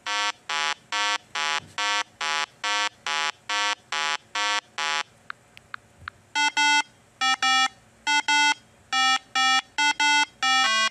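Electronic 8-bit style beeps: short buzzy square-wave tones repeating evenly, about two and a half a second. After a brief break with a few faint clicks, they come back as quick pairs of beeps that change pitch from pair to pair.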